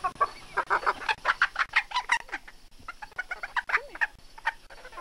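Poultry clucking: a quick run of short calls, densest in the first two seconds, then sparser and fading out towards the end.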